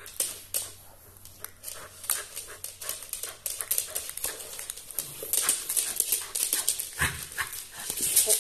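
Pembroke Welsh corgi mouthing and tugging a rubber bone toy: a rapid run of small clicks and taps that gets busier and louder in the second half.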